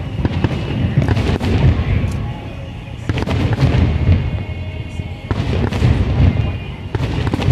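Fireworks display: a rapid run of bangs and crackling bursts with a heavy low rumble, over music.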